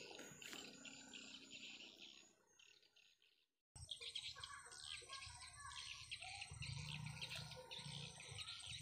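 Faint chorus of small birds chirping, thick with rapid short calls. It fades out to a moment of silence about three seconds in, then comes back abruptly.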